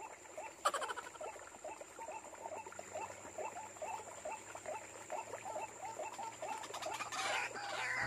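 White-breasted waterhen (ruak-ruak) calling, a steady series of short rising croaks at about three a second. A sharp click under a second in and a brief rustle near the end.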